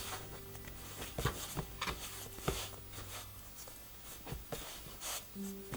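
Dough being kneaded by hand on a floured worktop: irregular soft thumps and slaps as it is pushed and folded. Faint background music holds long notes that fade out partway through and return near the end.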